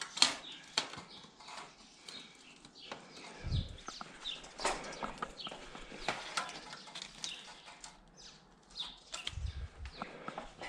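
Irregular crinkling, rustling and light tapping of roofing shingle material and scrap wrapper being handled, with a dull thump about three and a half seconds in and another near the end.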